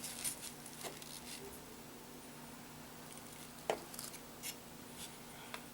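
Faint handling sounds during hand cleaning of a laptop heatsink: a few light clicks and taps, the sharpest about two-thirds of the way in, over a steady low hum.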